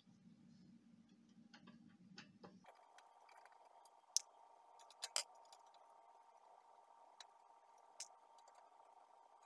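A few sharp, faint clicks of a screwdriver working screws out of a laser printer's sheet-metal side panel, about five in all, the loudest about four seconds in, over a faint steady hum.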